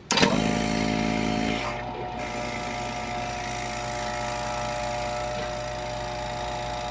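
Oil-sealed vacuum pump switching on and running steadily, drawing vacuum on a modified pressure-cooker chamber to evaporate water and alcohol from washed camera parts. It starts suddenly, is louder for about the first second and a half, then settles to a steady, slightly lower running note.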